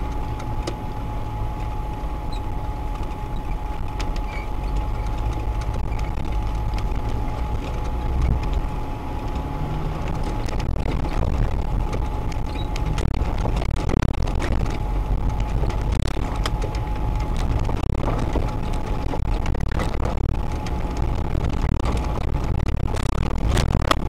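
Off-road vehicle's engine and drivetrain running steadily while driving over a rough, snowy dirt track, heard through a mounted camera as a continuous low rumble. Scattered knocks and rattles come from the bumps, and a thin steady whine runs underneath.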